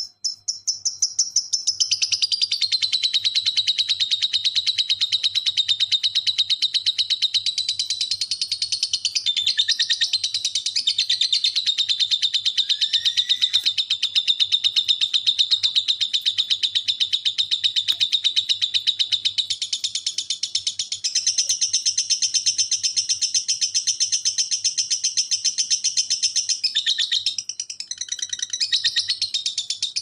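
Lovebird ngekek: one long, almost unbroken chatter of very rapid high notes. The pitch steps up about two-thirds of the way through, and there is a brief break near the end.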